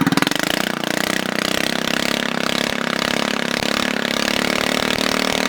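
Predator 212cc single-cylinder four-stroke engine on a go-kart, running through a straight-pipe J-pipe race header with no muffler: throttle opened right at the start and held steady at high revs, loud enough to read about 103 dB on a phone meter.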